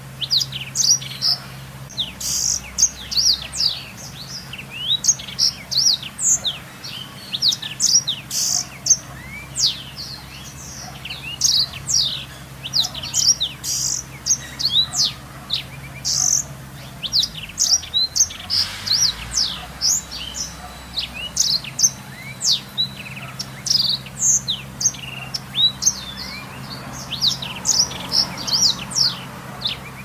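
Blackthroat (black-throated canary) singing a fast, unbroken stream of high chirps and trills, with a faint steady hum underneath.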